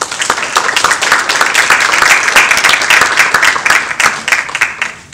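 Audience applauding: many hands clapping densely, rising quickly and dying away near the end.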